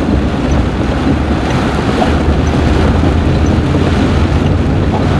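Vehicle driving on a wet, flooded gravel road: a steady low rumble of engine and tyres under a continuous rushing wash of water.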